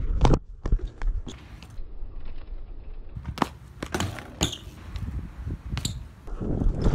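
Scattered sharp clicks and knocks over a low rumble, with a louder cluster of knocks right at the start: a BMX rider's footsteps and bike on concrete.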